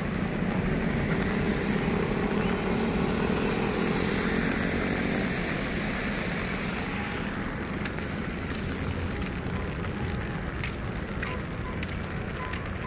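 Steady outdoor rumble with a vehicle's engine passing, its pitch sliding, over the first five seconds. A high hiss drops away about seven seconds in, leaving the low rumble and a few light clicks.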